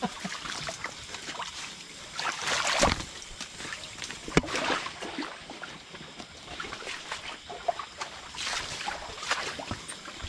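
Water sloshing and splashing in short bursts, with one sharp knock about four seconds in.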